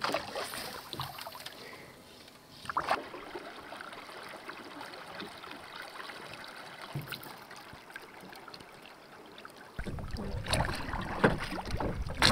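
Drift boat on a river: faint water sounds with an occasional knock. About ten seconds in, a louder stretch starts suddenly, with a low rumble and several knocks as the oars are worked.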